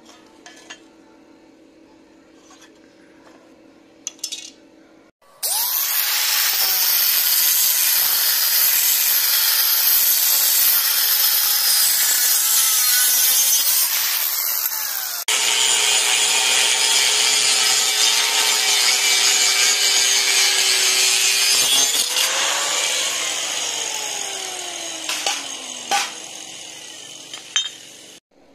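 Angle grinder with a thin cut-off disc cutting through steel, starting about five seconds in. Its whine wavers and sags in pitch as the disc bites, with a brief break about midway and a few sharp clicks near the end.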